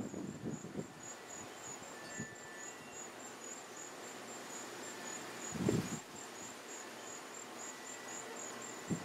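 High-pitched insects chirping in a steady, even pulse, with a brief low thump a little past halfway.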